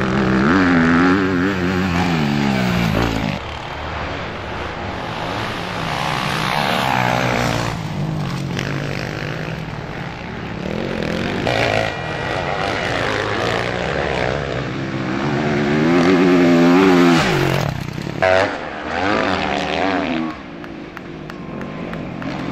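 Motocross bikes racing past, their engines revving up and dropping back again and again as riders accelerate and back off. The loudest passes come at the start and about two-thirds in.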